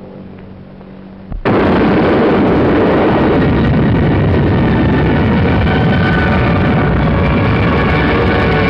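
Nuclear explosion blast on an old film soundtrack: after a low hum, a sudden loud boom about a second and a half in that carries on as a loud, steady rumble.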